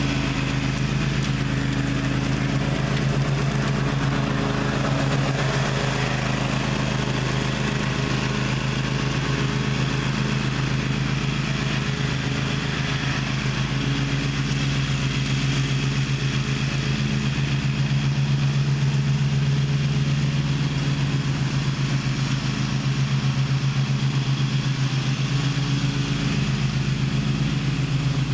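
Gravely ZTX 42 zero-turn mower's engine running steadily with an even drone.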